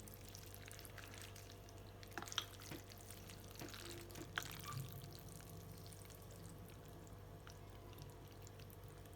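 Faint wet mixing of noodles with soy sauce, scallion oil and garlic, with a few light clicks of a utensil against the bowl, over a steady low hum.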